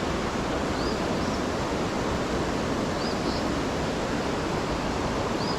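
Creek water running, a steady rushing noise throughout, with a bird's short high chirps heard faintly three or four times.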